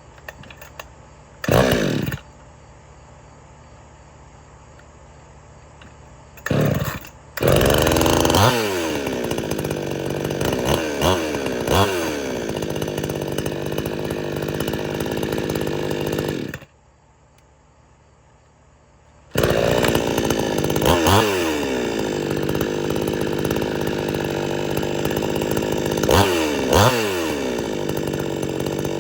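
Extreme Power 62cc two-stroke chainsaw being started, with two short bursts before it catches and runs. It idles with several quick throttle blips that rise and fall back, cuts off about two-thirds of the way in, then starts again and revs a few more times.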